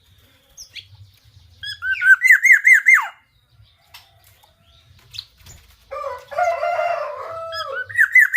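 Female black-naped oriole calling: a quick run of about five looping whistled notes, a harsh, grating nasal call about six seconds in, and another run of looping notes near the end.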